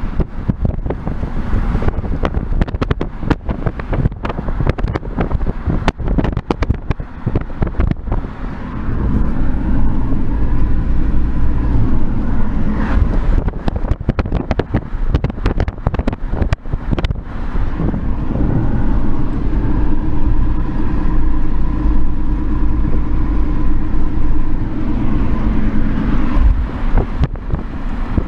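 Wind buffeting the microphone in uneven gusts. From about nine seconds in, a heavier steady low rumble comes in and fades near the end.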